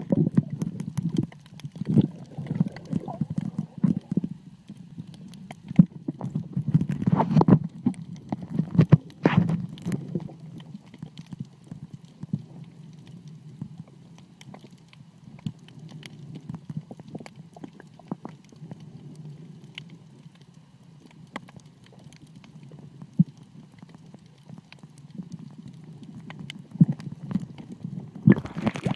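Muffled underwater sound through a phone's waterproof case: a dull low rumble with irregular knocks and clicks, busiest in the first ten seconds. Near the end, brighter splashing water noise comes in.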